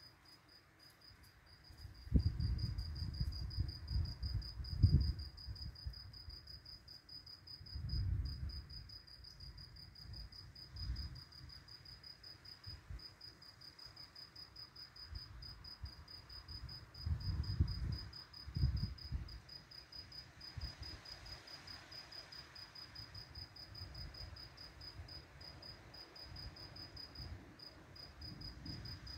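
A cricket chirping in a fast, even high-pitched trill. Low rumbles come and go underneath and are the loudest sounds, strongest a few seconds in and again past the middle.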